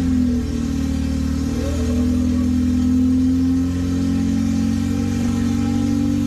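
Acura RSX's K20 four-cylinder engine running steadily at idle through an open header with no exhaust pipe bolted on after it, really loud.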